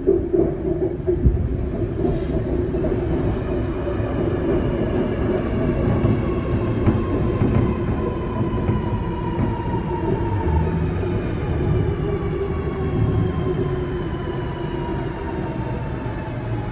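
Sydney Metro Alstom Metropolis driverless train pulling into the platform with a steady wheel-on-rail rumble. Its electric traction motors whine in several tones that fall slowly in pitch as the train brakes and slows.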